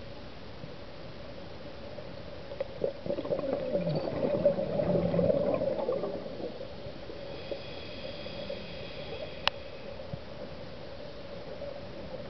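Scuba exhalation bubbles gurgling out of a regulator, heard underwater, swelling for about four seconds starting a couple of seconds in, over a steady low hum. A single sharp click comes near the end.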